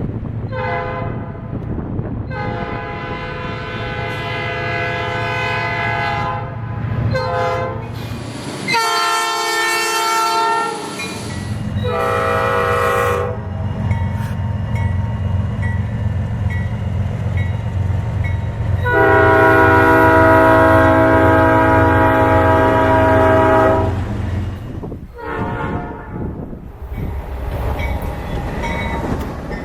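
Nathan Airchime P5 five-chime locomotive horn sounding a series of short and long blasts, the loudest and one of the longest a little past the middle, over the steady low rumble of the passing train.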